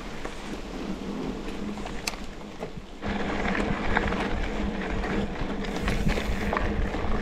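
Mountain bike riding over a dirt and gravel road: tyres crunching, with the odd click and rattle from the bike. At about three seconds it gets louder, with more low wind rumble on the microphone.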